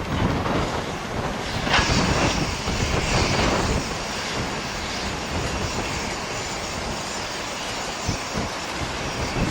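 A steam train running with a steady rumble and clatter of wheels on rails; from about two seconds in, a louder hissing stretch lasts roughly two seconds before settling back to the steady running noise.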